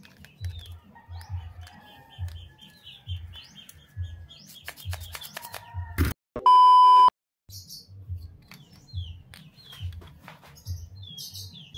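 Blue plastic PVC fittings clicking and knocking as they are handled on a table, under a low thump that repeats about twice a second and a bird chirping in quick repeated notes during the first half. A little past halfway a single steady electronic beep of about a second, the loudest sound, cuts in with a moment of silence either side.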